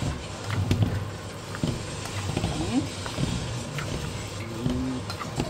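Utensil stirring thick, creamy pasta in a metal pot, with scattered scrapes and clicks against the pot and wet squelching. A steady low hum runs underneath.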